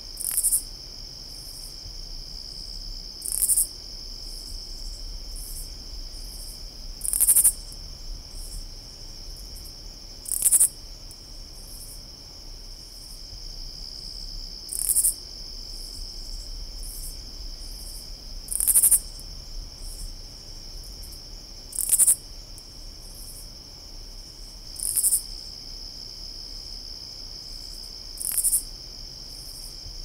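Katydid calling: short, very high rasping calls, each about half a second long, repeated every three to four seconds, about nine times, over a steady high-pitched insect drone.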